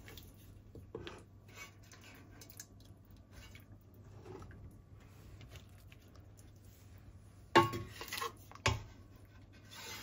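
Utensils and cookware being handled while rice and meat are layered in a pot: faint scraping and light knocks, then two sharp clatters about a second apart near the end.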